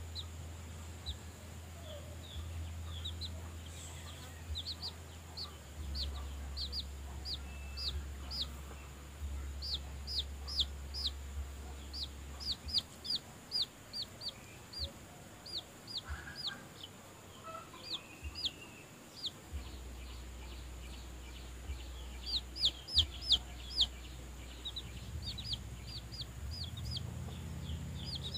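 Chicks peeping from under a brooding hen: runs of short, high, downward-sliding peeps in quick succession, coming in bursts, loudest about two-thirds of the way through.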